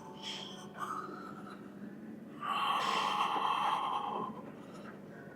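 A person breathing hard through weight-training effort: a short breath about a second in, then a long, louder exhale from about two and a half to four seconds in, over a faint steady hum.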